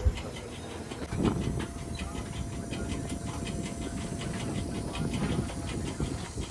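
JCB 3DX backhoe loader's diesel engine running under work, with a steady rapid ticking of about four to five beats a second over a low rumble.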